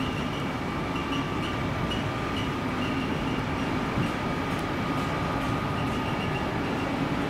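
A train running past with a steady rumble and a thin, steady high whine over it.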